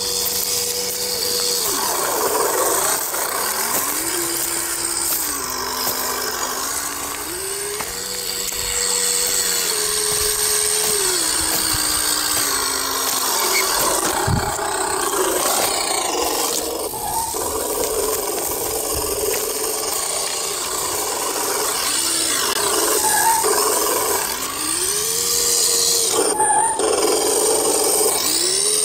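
Electric motor and gearbox of an HG P402 RC scale truck whining, the pitch rising and falling again and again with the throttle. Under it is the crunch of its Pro-Line M3 tyres over leaf litter and gravel, with a single low thump about halfway through.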